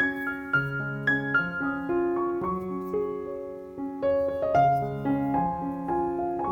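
Background piano music: a melody of evenly paced notes over a lower accompaniment.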